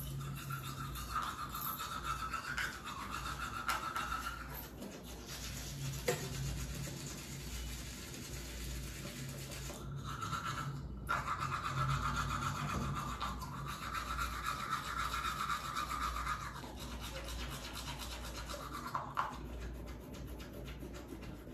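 Teeth being brushed with a manual toothbrush: steady scrubbing strokes, with a brief pause about halfway through.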